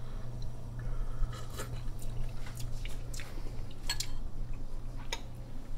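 Quiet mouth sounds of someone tasting a spoonful of stew: small sips, smacks and clicks at irregular moments. A steady low hum runs underneath.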